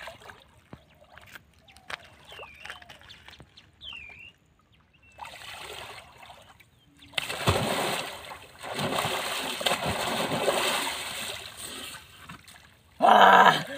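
A person wading waist-deep in a pond and splashing water over his body with his hands. The sloshing and splashing start softly about five seconds in and grow loud and continuous for several seconds. Near the end comes a short loud vocal cry.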